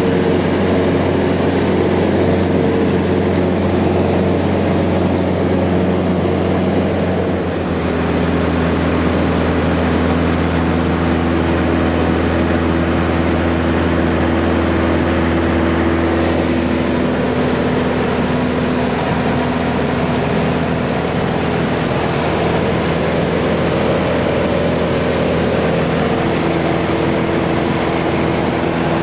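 Cessna 177B's four-cylinder Lycoming engine and propeller droning steadily in cruise flight, heard from inside the cabin. The tone shifts slightly twice, about a quarter of the way in and again past halfway.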